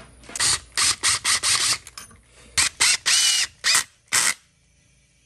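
Repeated short bursts of ratcheting, about seven in four seconds, as fasteners are driven home while the Stihl MS200T chainsaw is reassembled. The sound stops shortly before the end.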